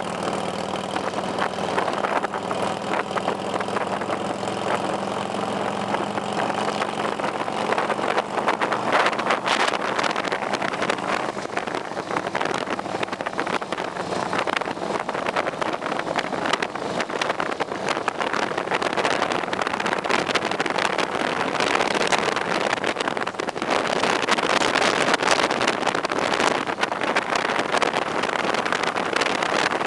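Motorcycle running at road speed, heard from the rider's own bike: a steady engine hum for the first several seconds, then wind buffeting on the microphone grows and covers it.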